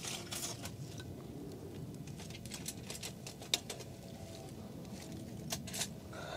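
Wood fire crackling inside a small folding steel wood stove: a run of scattered sharp pops and snaps over a soft rushing of flame, one pop standing out about three and a half seconds in.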